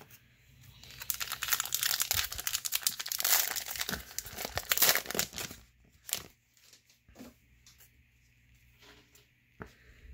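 Plastic wrapper of a Bowman baseball card pack being torn open and crinkled in the hands for several seconds, followed by a few light clicks as the cards inside are handled.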